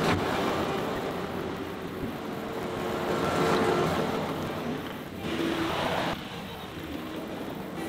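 John Deere 325G compact track loader's diesel engine running as the machine pushes dirt with its bucket, steady throughout, turning fainter after about six seconds as the loader is further off.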